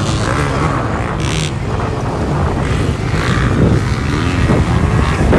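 Off-road vehicle engine running steadily under way.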